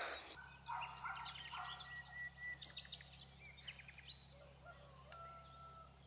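Faint mixed birdsong from several birds: many short chirps and trills, with a few longer whistled notes, one near the end. A low steady hum lies underneath.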